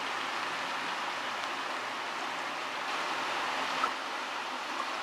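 Flowing river water, a steady rushing noise, with one brief sharp sound about four seconds in.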